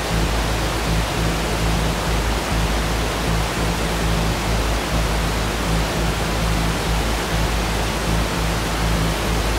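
Loud, steady roar of a waterfall in flash flood, rushing water filling the sound, with low sustained background music underneath.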